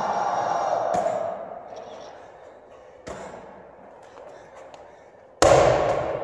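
Medicine ball thuds during wall-ball reps, about a second in and again about three seconds in, then a louder, ringing thud near the end as the ball is dropped to the floor. Music plays at first and fades out.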